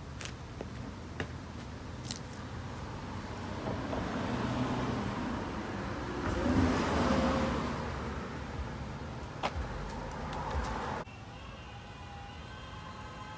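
Boosted Stealth electric skateboard rolling away on asphalt: a rush of wheel and motor noise that swells to its loudest about seven seconds in and then fades, with a few sharp knocks.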